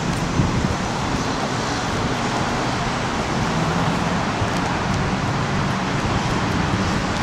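Steady road-traffic noise, with a low engine hum that comes and goes.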